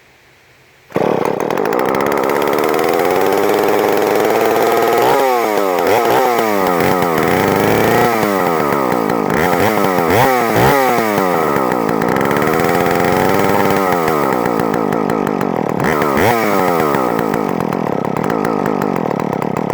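Alpina Pro 45 two-stroke chainsaw catching on a pull-start with the choke off about a second in, running, then revved up and down over and over: quick throttle blips and one slower rise and fall.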